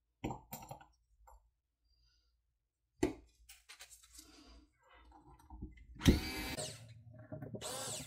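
Small cordless electric screwdriver running in two short bursts, driving in the airgun's trigger guard screws, after a few light clicks of metal parts being set in place.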